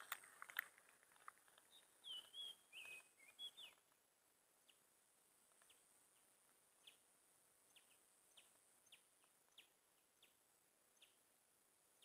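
Faint bird calls over near-quiet ambience: a short whistled, warbling phrase about two seconds in, then scattered faint single chirps.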